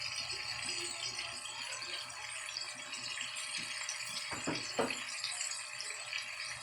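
Chicken frying in hot oil: a steady, dense crackling sizzle, with a brief pitched sound about four and a half seconds in.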